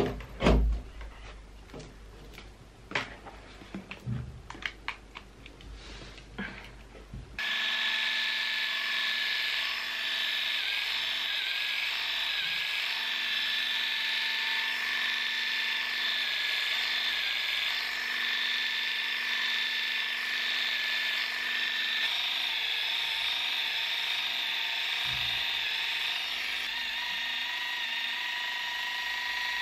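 A few scattered knocks and handling clicks, then about seven seconds in a corded electric facial epilator starts abruptly and runs steadily with a high whine as it is worked over the cheek and chin, plucking out facial hair.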